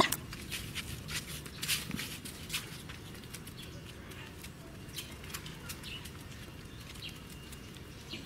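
Outdoor garden ambience: scattered short chirps and ticks, thickest in the first three seconds, over a low steady background, with one sharp click at the very start.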